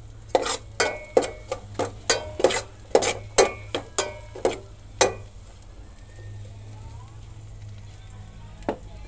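A cooking utensil clanking and scraping against a metal pot while onion, garlic and ginger are sautéed in oil: about a dozen quick strikes, each ringing briefly. After about five seconds the clanking stops, leaving a low steady hum and a faint sizzle, with one more clank near the end.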